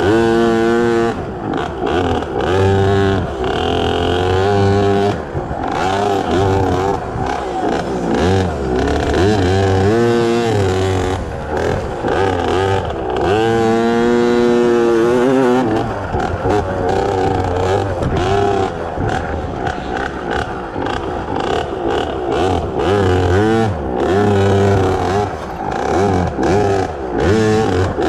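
Small two-stroke KTM 50 dirt bike engine revving up and down over and over as the throttle is opened and closed. The pitch rises and falls every second or two and is held high for a couple of seconds near the middle.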